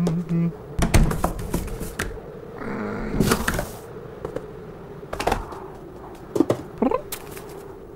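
Cartoon sound effects of a cat squeezing in through a window and climbing down: a short low hum-like grunt, sharp clicks and knocks, a brief straining scrape, and short rising squeaky vocal sounds near the end.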